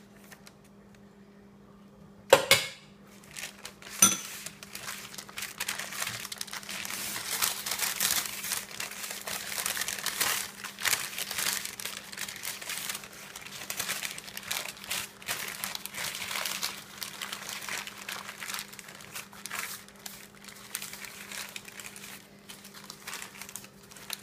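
Wrapping paper crinkling and rustling steadily as pasteles are folded and wrapped, after two sharp knocks about two and four seconds in.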